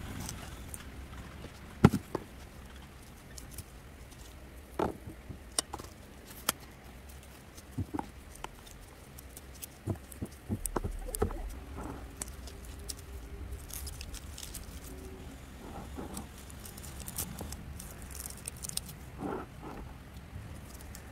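Irregular light clicks, taps and rustles of hands handling succulent cuttings and a cutting knife, the sharpest click about two seconds in.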